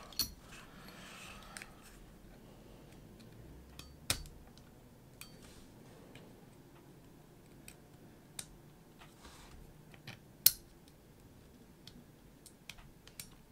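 Scattered small clicks and taps of an airsoft pistol's parts being handled as a trigger pin is worked through the plastic frame and trigger return spring with a pick tool. The two loudest clicks come about four seconds in and about ten and a half seconds in.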